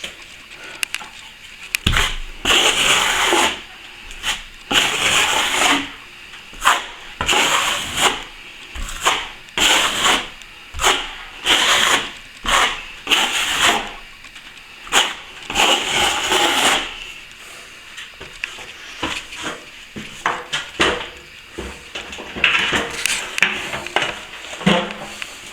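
Hand tool rubbing and scraping over a plaster ceiling in repeated scratchy strokes, each half a second to a second long, about a dozen of them, then shorter, quicker, lighter strokes near the end.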